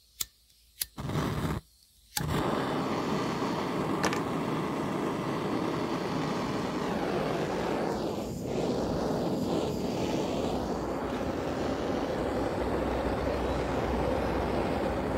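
A lighter clicks twice and a brief burst of flame catches, then about two seconds in a gas-cartridge blowtorch lights and burns with a steady, loud rushing hiss.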